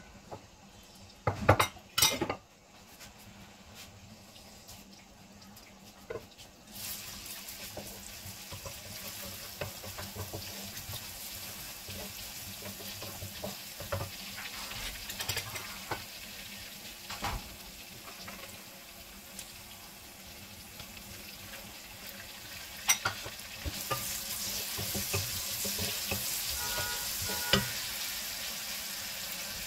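Chopped garlic and onion frying in oil in a steel pan, turned with a wooden spatula that scrapes and knocks against the metal. A few loud knocks come about two seconds in; the sizzle starts about seven seconds in and grows louder near the end.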